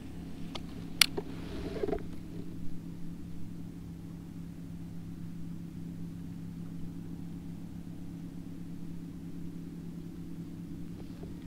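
Steady low hum of the kayak's drive running as the boat moves. There is a sharp knock about a second in and a brief rustle of handling just before two seconds.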